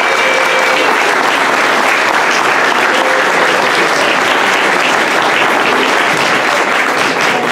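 Audience applauding, a steady dense clapping that holds at one level.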